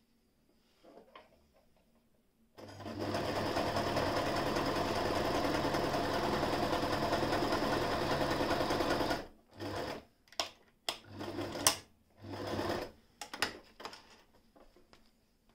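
Frister & Rossmann 202 electric zigzag sewing machine starting about two and a half seconds in and stitching steadily for about six seconds. It then runs in a few short bursts mixed with sharp clicks.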